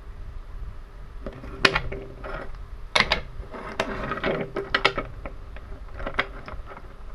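Learning Curve wooden Thomas and Percy toy engines clicking and knocking against one another and the tabletop as they are handled and lined up, in a string of sharp knocks, thickest in the middle, over a low rumble.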